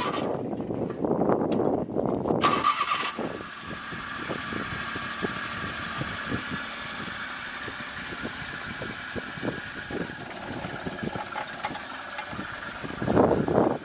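Car engine being cranked over on the starter and struggling to start. The sound is louder for the first couple of seconds, then goes on more quietly with irregular ticks.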